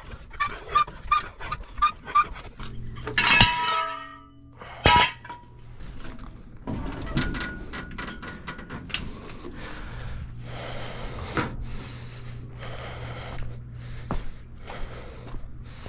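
Metal tools and a steel jack handle clanking and clinking on a concrete driveway while the truck is lowered. It opens with a quick run of light rhythmic clicks, then two loud ringing metal clanks about three and five seconds in, followed by scattered lighter clinks.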